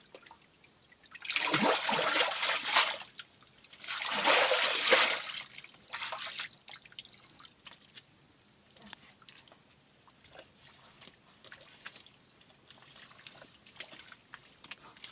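Muddy water splashing and sloshing as a person wades in a shallow trench pool, with two loud splashes in the first five seconds, then quieter sloshing.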